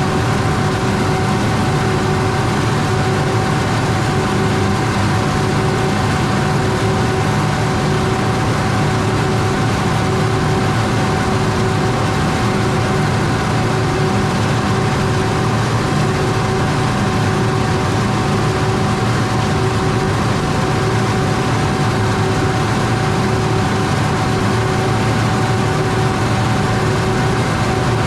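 Heavy diesel cotton-harvesting machinery running steadily under load: a constant low engine drone with a steady whine above it and a broad rushing noise, with no change in speed.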